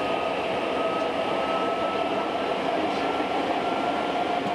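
Hankyu Kyo-train electric train running steadily along the line, heard from inside: an even rumble of wheels on rail with a steady whine on top, its pitch drifting slightly.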